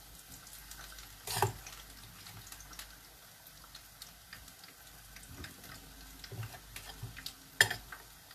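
Hot oil sizzling faintly as battered sweet potato slices deep-fry, with small ticks. Two sharp knocks, about a second and a half in and a louder one near the end.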